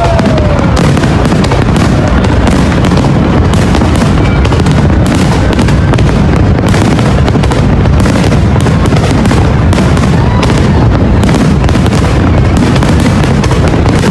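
Large aerial fireworks barrage: a loud, continuous, rapid crackle of bursting shells and stars with no pause.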